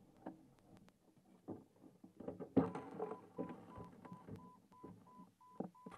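Irregular knocks and rubbing close to the microphone, loudest about two and a half seconds in. From about three seconds in, a faint short beep repeats about three times a second.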